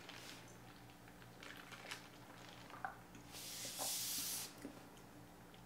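A few faint clicks of a plastic cup being handled, then a hissing sip of iced drink from the cup lasting about a second, about three and a half seconds in.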